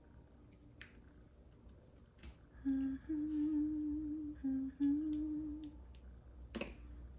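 A woman humming a short tune with her mouth closed, from about three seconds in until about six seconds in. The tune steps back and forth between a lower note and a slightly higher held note. Faint light clicks of food being handled on a cutting board come and go around it.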